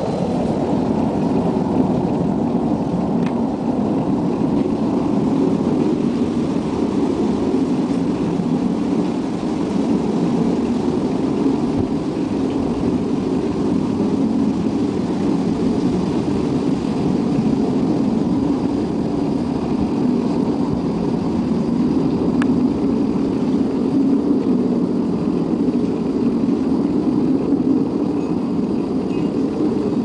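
A steady, loud low rumbling drone with no clear pitch, of the kind reported in 2011 as unexplained 'strange sky sounds'.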